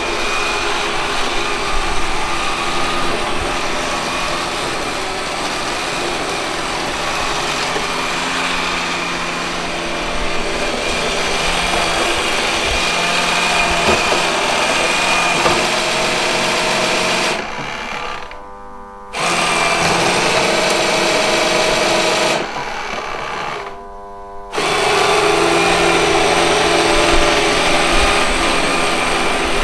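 Robot vacuum cleaner running, with a steady motor and brush whir. The sound drops away sharply twice in the latter half, each time for about a second or two, then comes back at full level.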